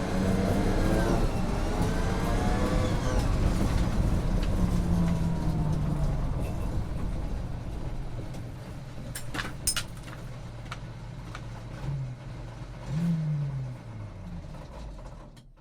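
Armoured personnel carrier engine running loud, with a whine that rises and falls over the first few seconds. About halfway through it drops to quieter running, with a couple of sharp clanks, and the sound cuts off at the end.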